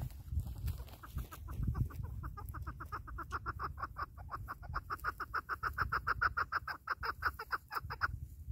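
Caged decoy chukar partridge calling: a long run of rapid clucking notes, about seven a second. The run starts about a second in, grows louder and stops sharply near the end.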